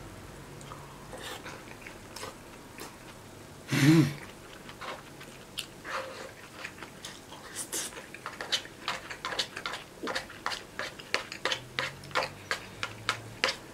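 Close eating sounds: a person chewing a mouthful of rice and pork cutlet, the mouth clicks and smacks becoming quick and regular in the second half, about three a second. A short, loud voiced grunt about four seconds in.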